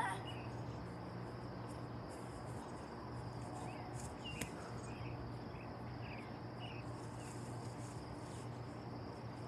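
Insects chirping in a steady, pulsing high drone, with a few short higher chirps scattered through and a low steady hum underneath.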